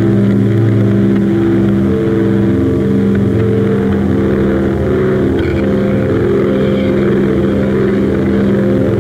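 Droning experimental music from a cassette: several low sustained tones held together over a hazy, hissing upper layer, with a higher tone joining about two seconds in.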